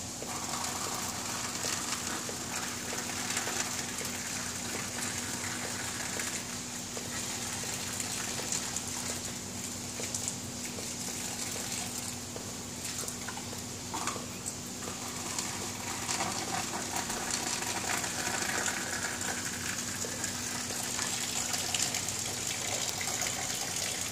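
Steady rush of heavy rain and running, gushing water, with a constant low hum underneath.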